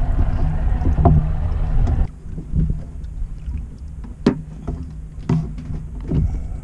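Mariner outboard motor running steadily, then cutting out abruptly about two seconds in. After that comes a quieter low rumble with a few sharp knocks.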